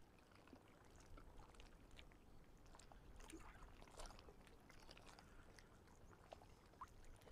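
Near silence, with a few faint, short ticks.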